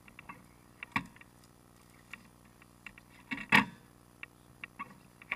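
Scattered clicks and knocks as a rider moves about and walks away beside the parked motorcycle's camera, with one loud thump about three and a half seconds in.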